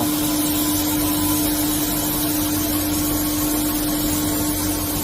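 SNK RB-200F 5-axis CNC bridge mill running, a steady machine hum with one constant mid-pitched tone over an even noise, unchanging throughout.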